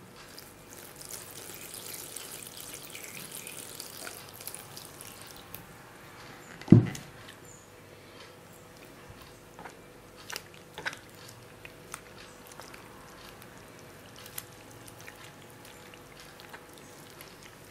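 Lukewarm water pouring into a bowl of flour for a few seconds, then a single thump about seven seconds in. After it come soft, scattered squelches and clicks of a hand mixing the water, fresh yeast, flour and mashed potato into a wet dough.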